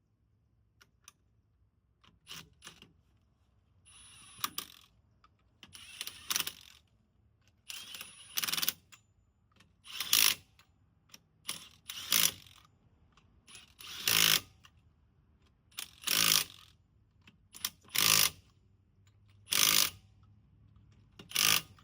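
A hand tool worked in regular strokes: about ten short bursts roughly two seconds apart, the later ones louder than the first few.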